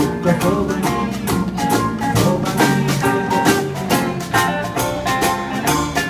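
Live acoustic street band playing a song on ukulele, guitars, upright bass and drum, with a steady beat.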